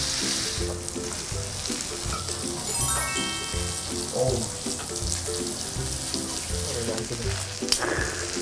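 Beef tenderloin sizzling in melted butter on a grill plate, under background music of short repeated notes, with a quick rising chime effect about three seconds in.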